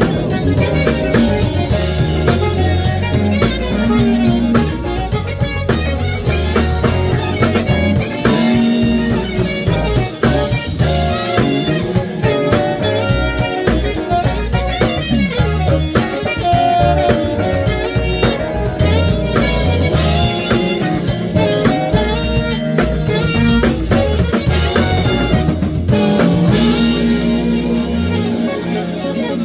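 Live jazz band playing an instrumental tune: saxophone, keyboards, electric guitar, electric bass and drum kit.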